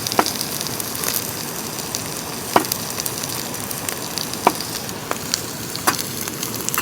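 Pork belly sizzling steadily in a hot pan over charcoal, with a handful of sharp ticks scattered through it.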